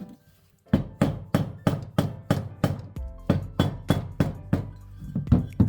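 Background music with a steady, quick percussive beat over held tones, starting about a second in.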